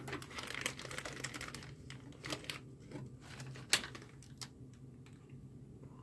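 Small screws and parts being picked out and handled by hand: a run of light clicks and small knocks, dense in the first two seconds and then thinning to a few sharper clicks.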